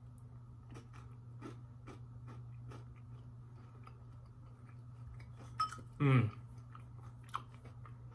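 A person biting into and chewing a crunchy caramel candy cluster with crispy cookie and brownie pieces: faint crunches about two or three a second. About six seconds in, a short falling 'mm' from the eater.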